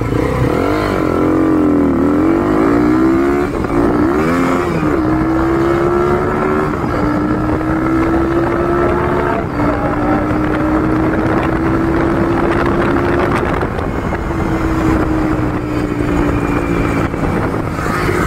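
Bajaj Pulsar NS200's single-cylinder engine through a custom exhaust, pulling away and shifting up through the low gears, its pitch rising and falling several times in the first few seconds. It then runs on under load at a steady pitch that creeps slowly upward.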